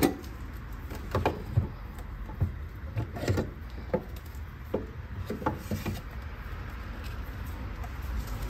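A Tesla Mobile Connector's plug being pulled out of a NEMA 14-50 wall outlet, then its heavy charging cable being gathered up by hand. The sound is a series of short knocks and clicks of plug and cable against the wall, over a steady low background.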